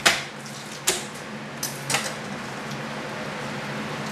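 A few sharp knocks and slaps in the first two seconds as a raw slab of pork ribs is lifted, turned and set down on a cutting board, over a steady low hum.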